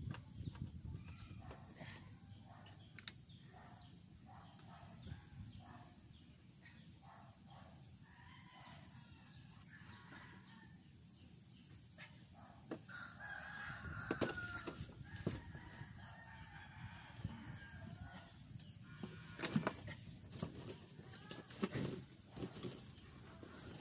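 Faint chicken calls, with a rooster crowing among them, and a few sharp knocks about fourteen and twenty seconds in.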